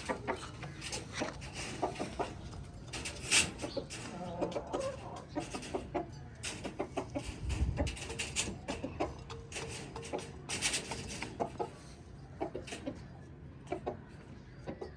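Chickens clucking in short, repeated notes, with a few sharp clicks and a low thump about halfway through.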